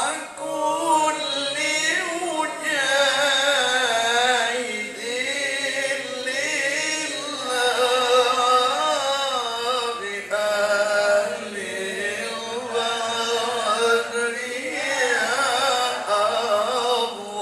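A man reciting the Quran in the melodic tilawah style into a handheld microphone: long held notes that waver and ornament in pitch, broken by short breaths, with one long falling glide near the end.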